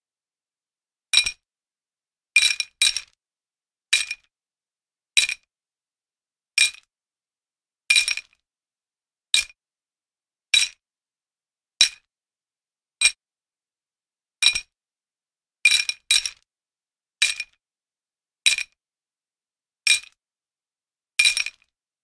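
A metal chain jingling in short shakes. Each shake is a brief, bright clinking with a light ring. They come about once every second and a half, some as quick double shakes, with silence between.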